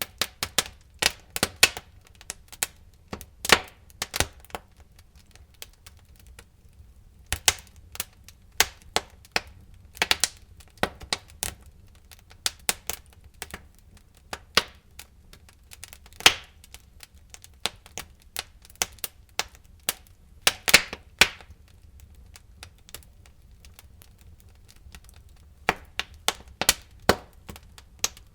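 Wood fire burning in a fireplace, crackling with irregular sharp pops and snaps, some in quick clusters, with a couple of brief lulls.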